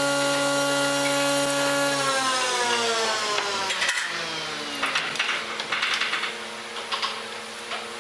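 A power tool's electric motor running steadily at speed, then released and winding down over about two seconds. After it stops, scattered light clicks and knocks of tools being handled.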